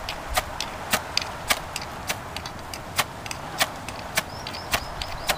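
Fire-starter rod from a survival kit being struck again and again with its striker to light a fire: short sharp scrapes, nearly two a second, evenly spaced.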